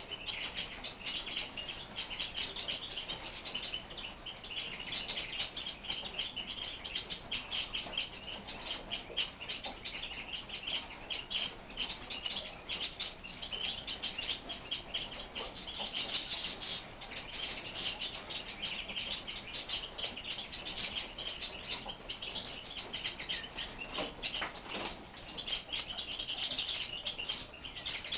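Caged lark singing: an unbroken stream of fast, high chirping and trilling notes.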